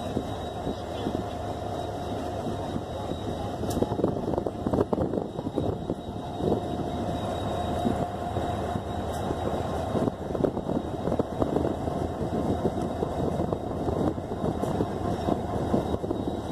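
HGMU-30 diesel-electric locomotive's EMD two-stroke diesel engine running as the locomotive moves slowly up along the platform. It gives a steady rumble with rough clatter and a faint steady whine.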